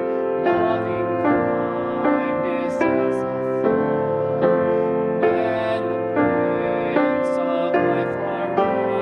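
Slow instrumental piano music, sustained chords with a new one struck a little faster than once a second.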